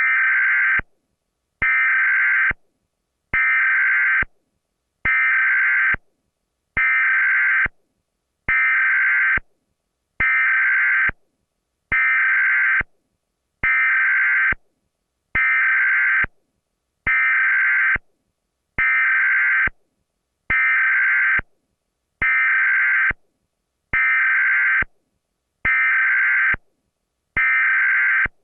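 Emergency Alert System tones: the buzzing digital SAME header bursts, repeated over and over. Identical loud bursts of about a second each come at a steady beat, about one every 1.7 seconds, with short silences between.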